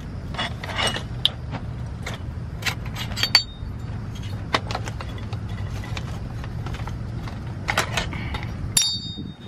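Aluminium roller-furler foil sections clicking, knocking and scraping as they are worked apart by hand, over a steady low rumble. Near the end comes a short metallic ring, and the rumble cuts off suddenly.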